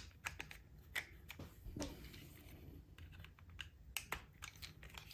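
Faint, scattered small clicks and taps as the small plastic and metal parts of an HO scale model locomotive's motor and chassis are handled.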